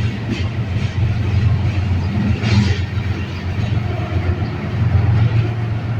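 Freight train rolling by: a steady low rumble of the cars on the rails, with a few wheel clicks in the first second.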